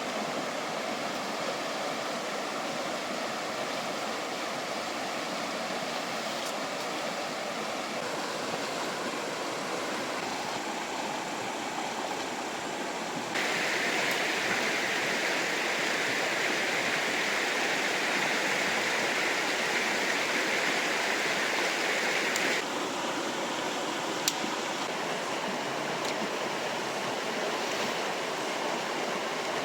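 Fast river water rushing steadily. About 13 seconds in the rush turns suddenly louder and brighter, then drops back just as suddenly about 9 seconds later, with one sharp click a little after.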